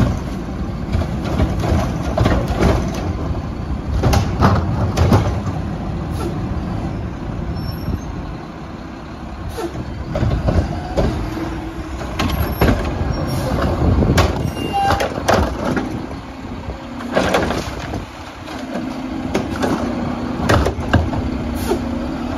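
Garbage truck running, with repeated clanks and knocks from its work, and a steady hum that comes in near the end.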